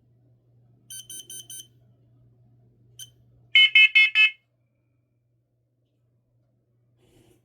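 Interconnected smoke and carbon monoxide alarms sounding the carbon monoxide alarm pattern of four quick beeps in a row. A quieter, higher group of four comes about a second in, then a single short chirp, then a much louder, lower group of four beeps.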